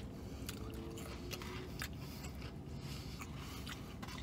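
A man chewing fried chicken fingers, with faint scattered mouth clicks, over a low steady rumble inside a car.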